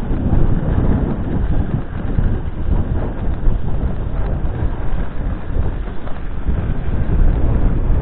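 Wind buffeting the microphone of a skier's camera during a run down a groomed piste, a loud, steady rumble with the skis running over the snow beneath it.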